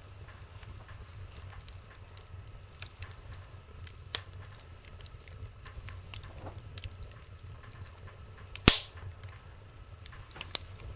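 Logs burning in a wood stove, crackling with scattered sharp pops over a low steady rumble; the loudest pop comes about three-quarters of the way through.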